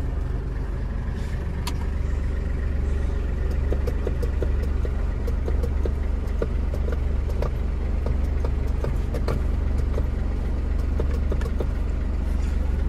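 Hino 500 truck's diesel engine idling steadily, heard from inside the cab, with occasional light clicks and rattles.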